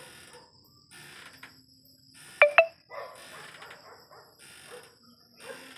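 A dog barking repeatedly, about once a second. Two sharp clicks close together about halfway through are the loudest sound.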